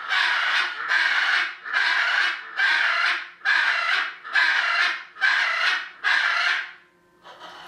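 Parrot screaming: a regular series of loud, harsh calls, about one a second, stopping about seven seconds in. The owner complains about the noise.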